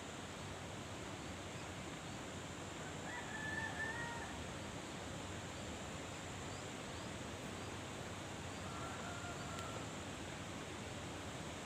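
Steady rushing outdoor noise, with two short animal calls over it: a louder one about three and a half seconds in and a fainter one near nine seconds.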